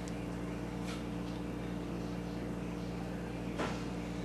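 Metal spatula spreading soft cream cheese frosting over a cake in its pan, with faint scrapes, the clearest about one second and three and a half seconds in, over a steady low electrical hum.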